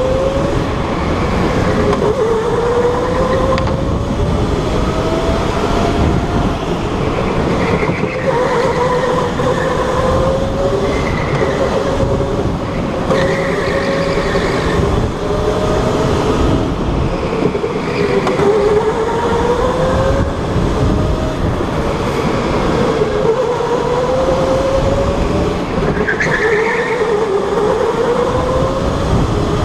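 Electric go-kart motor whining under acceleration, its pitch climbing along each straight and dropping back as the kart slows for the corners, over and over, above a steady rumble of tyres on the track.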